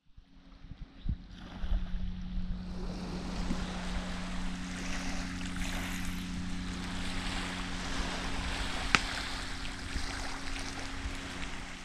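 A steady low engine hum under a constant wash of waves and wind, with one sharp click about nine seconds in.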